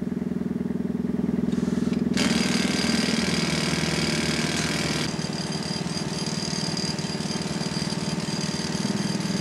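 An engine running steadily with a low, even hum. About two seconds in, a hiss joins it and eases off around five seconds in.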